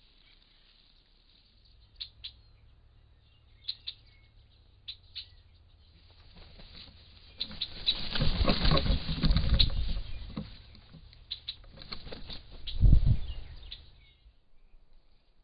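Turkey vulture's wings flapping and brushing close to a trail camera, a loud stretch of rustling in the middle and a heavy thump near the end. A few sharp clicks come before it.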